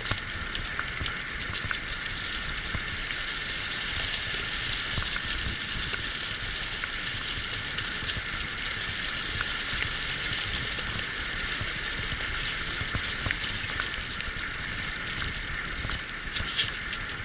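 Wheeled dog-racing rig running steadily along a forest trail, a continuous hiss of tyres on the track with some rattling from the rig.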